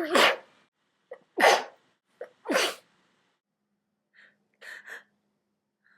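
A woman sneezing three times in quick succession, about a second apart, each sneeze preceded by a short sharp intake, during a sneezing fit. A few fainter breath sounds follow near the end.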